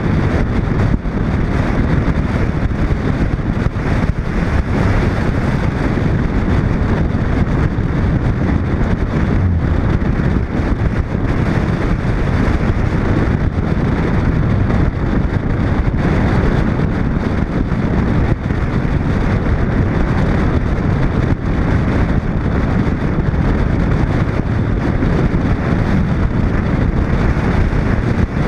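Steady wind buffeting a camera mounted on the outside of a moving 1941 Chevrolet, with the car's road noise rumbling underneath.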